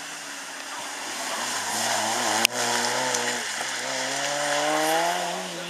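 Hatchback rally car's engine revving hard under acceleration, its note climbing, dropping briefly about three and a half seconds in as the driver lifts or shifts, then climbing again. A single sharp click about two and a half seconds in.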